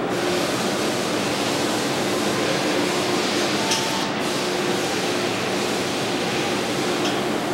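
Steady hiss with a faint steady hum underneath, even in level throughout, with no distinct handling sounds standing out.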